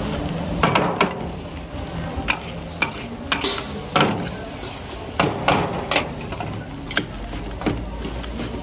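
Long-handled steel spatula and ladle clanking and scraping against a large stainless steel wok while tossing a big batch of fried rice, about a dozen irregular metallic knocks over a steady low hum.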